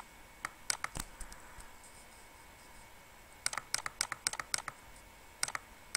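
Sharp clicks at a computer: a few in the first second, a quick run of about eight in a second near the middle, then two more near the end.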